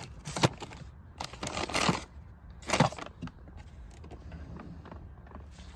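Plastic-wrapped packs of sanding discs and saw blades being handled in a tool drawer: a sharp click, then two louder crinkling rustles of the packaging about a second apart.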